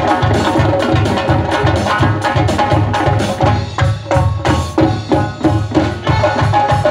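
Live Uzbek ensemble music: several doira frame drums beating a fast rhythm together over a melody, with a keyboard and drum kit, played through loudspeakers. About halfway through, the drumming breaks into separate sharp strokes before the full beat returns.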